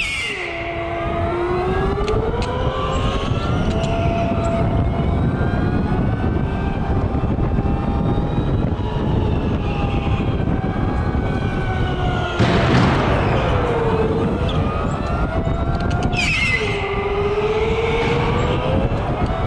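Electric go-kart motors whining over a steady low rumble, the pitch sweeping down as the karts slow for corners and climbing again as they accelerate, with several karts' whines overlapping. A loud burst of rushing noise comes about twelve and a half seconds in.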